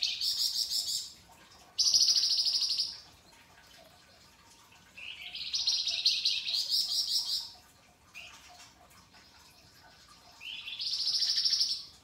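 Caged flamboyan songbird singing harsh, rapid rattling trills in four bursts of one to two and a half seconds each. The longest comes a little after the middle. Several begin with a quick rising sweep.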